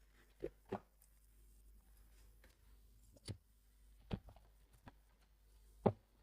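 Computer parts and their packaging being handled, heard as five separate sharp knocks and clicks, two close together at the start and the loudest near the end.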